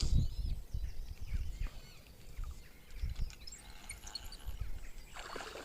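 Birds chirping against irregular low thuds and rumble on the microphone, with a short rush of noise near the end.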